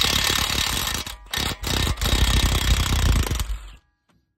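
Cordless impact wrench with a 21 mm socket hammering on a front brake caliper bracket bolt torqued to 170 foot-pounds. It hammers in two runs with a brief let-up about a second in, then stops suddenly shortly before the end.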